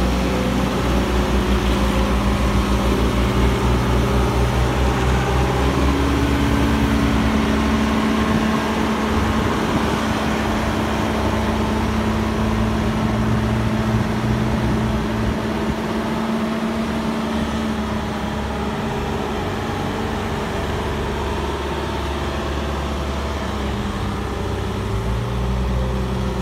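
Diesel engine of an Ajax Argo self-loading concrete mixer running steadily under load, its revs rising about six seconds in, easing off in the second half and picking up again near the end.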